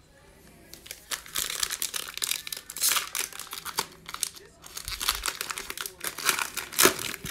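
A Prizm football card pack's foil wrapper being torn open and crinkled in the hands as the cards are worked out, a dense crackling that starts about a second in, with one sharper crackle near the end.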